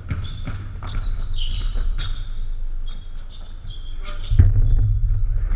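Basketball game on a hardwood gym floor: a ball bouncing and short high sneaker squeaks, over a steady low rumble. There is a heavy low thump about four seconds in.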